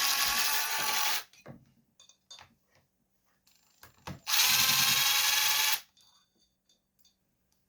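Cordless impact driver running in two short bursts, backing fasteners out during a chainsaw teardown. The first burst stops about a second in, and the second, about a second and a half long, comes near the middle. Small clicks and taps of parts being handled lie between them.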